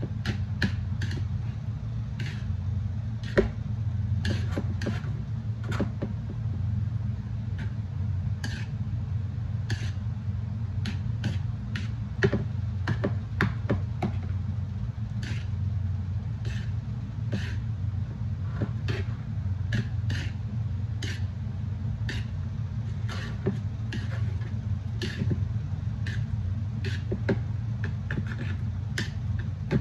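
Plastic chopsticks clicking and tapping against a wooden bowl while noodles are tossed and mixed, in sharp, irregular clicks about once or twice a second, over a steady low hum.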